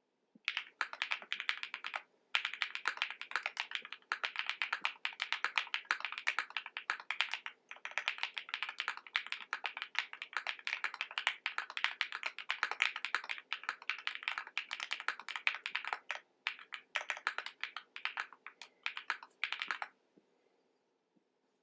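Typing on a Wind X custom mechanical keyboard with lubed and filmed JWK Epsilon switches, a POM plate and GMK Honey keycaps: a dense, fast run of keystrokes broken by a few short pauses. The typing stops about a second and a half before the end.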